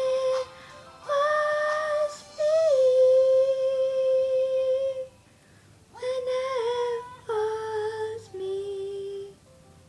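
A young woman singing alone with no accompaniment, drawing out the last line in a few long held notes, the longest lasting about two and a half seconds. She stops about half a second before the end.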